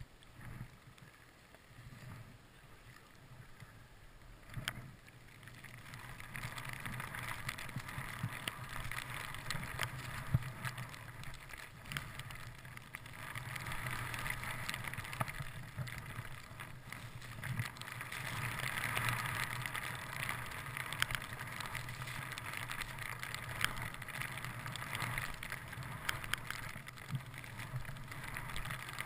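Skis swishing through deep powder snow with wind rushing over the microphone, growing louder about five seconds in and rising and falling in swells with the turns, with a few sharp knocks.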